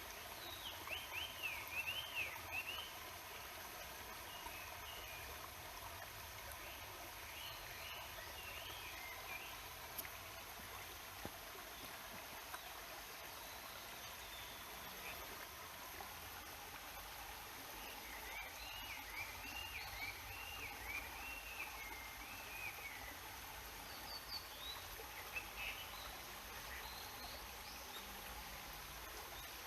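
Mountain stream water rushing steadily, with a small songbird singing quick, warbling phrases over it several times: once near the start, again a few seconds later, and in a longer run past the middle.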